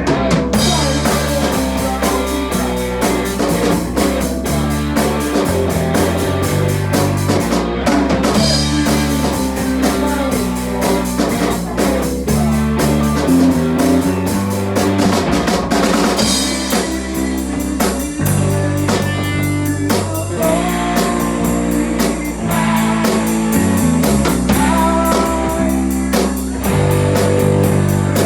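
Rock music played loud on drum kit, electric guitar and bass, with a steady beat.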